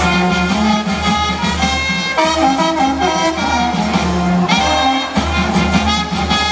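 Brass-band dance music, with trumpets leading over a steady bass line, playing without a break.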